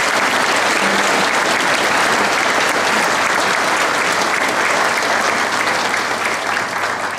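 A large audience applauding steadily, many hands clapping at once, easing off near the end.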